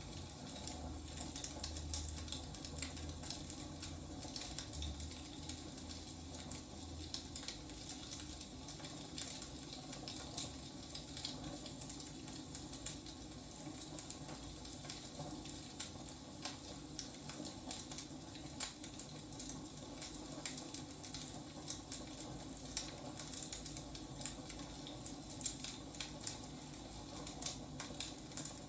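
Wood fire crackling: irregular sharp pops and snaps over a steady low hiss.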